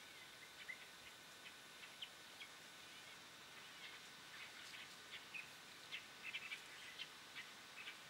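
Faint background birdsong: many short, high chirps from small birds, scattered and busiest in the second half, over a low steady hiss.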